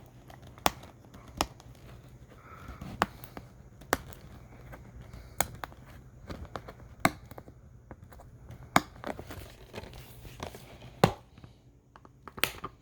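Plastic shrink wrap being torn and peeled off a DVD case, crinkling, with a dozen or so sharp irregular clicks and snaps as the plastic case is handled.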